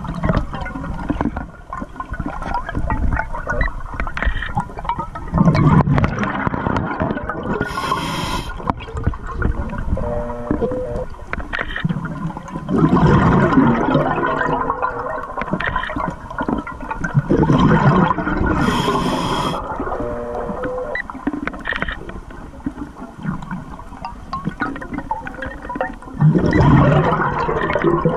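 Scuba diver's regulator breathing, heard underwater: several bubbling, gurgling exhalations a few seconds apart, with two short hissing inhalations between them.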